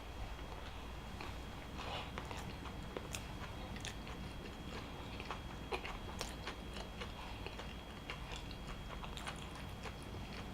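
Close-miked chewing of a mouthful of burger: soft, wet mouth clicks and smacks at irregular intervals.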